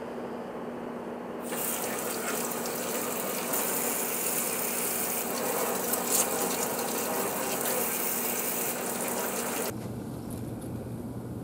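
Tap water running and splashing over an onion in a stainless steel sink as it is rinsed and peeled by hand. The water comes on about a second and a half in and is shut off near the end.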